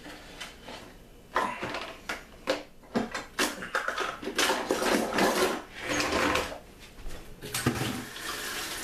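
Off-camera clattering and rattling of kitchen utensils as someone rummages for a rubber spatula, in an irregular run of knocks and rustles.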